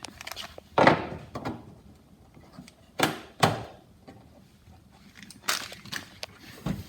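A handful of short, dull knocks and thunks, about five spread out, as plastic plugs are pushed into holes in a Polaris RZR's panel by hand.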